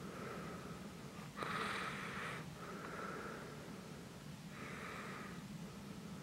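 A person's breathing close to the microphone, one breath every second or two, the loudest about a second and a half in.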